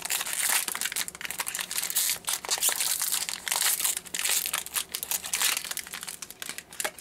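Plastic packaging crinkling and crackling as it is handled, with many small sharp crackles.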